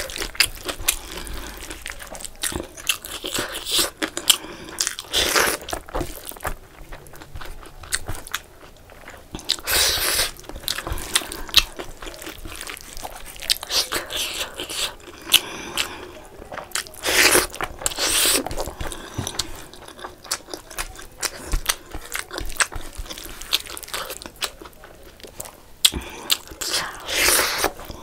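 Close-miked mouth sounds of a person eating curry-soaked rice and chicken by hand: wet chewing and lip-smacking, with many small clicks and several louder, longer mouth noises.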